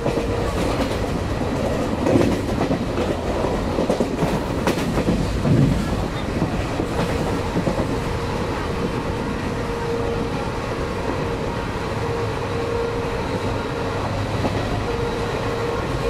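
Passenger train running, heard from inside a coach: a steady rumble of wheels on the rails, with a run of sharp clacks and knocks from about two to six seconds in. A thin steady whine comes and goes.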